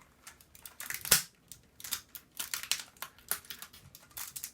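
Plastic clicks and snaps as pieces of a 1990s computer keyboard are pried off one by one, with one loud sharp snap about a second in.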